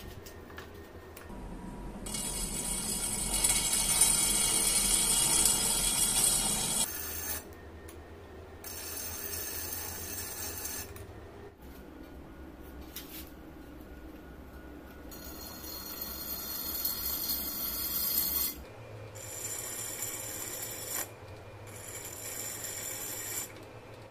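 Electric-motor-driven grinding wheel running with a low hum while a katana replica's steel blade is pressed against it in several passes a few seconds long, each giving a loud, high-pitched, ringing grinding sound that stops abruptly.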